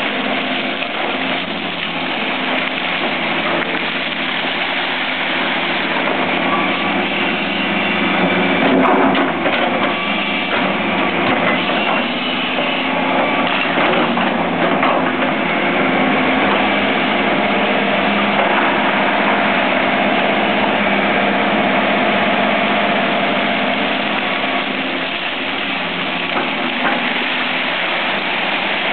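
Fiat-Hitachi EX285 hydraulic excavator's diesel engine running steadily as the machine digs gravel, with a few brief knocks of the bucket on stones about nine seconds in and again near fourteen.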